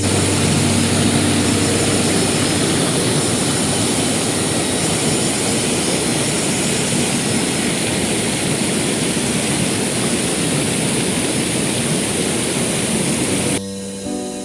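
Waterfall and river water rushing: a loud, steady roar of falling water that cuts off abruptly near the end, leaving background music.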